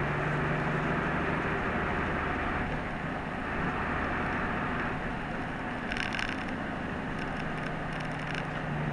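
Inside a route bus under way: steady engine hum and road noise. The engine hum eases off partway through and picks up again near the end, with light clicks and rattles in the second half.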